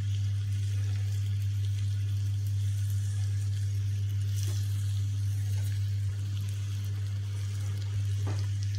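Butter-and-brown-sugar caramel sizzling softly in a frying pan as apple wedges are set into it, with a couple of faint taps of fruit against the pan, over a steady low hum.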